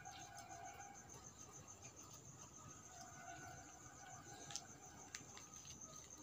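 Faint, steady chirping of crickets, with a couple of soft clicks about four and a half and five seconds in.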